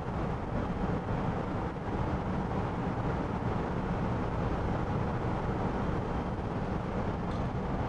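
Steady low hum with an even rushing noise from background machinery running.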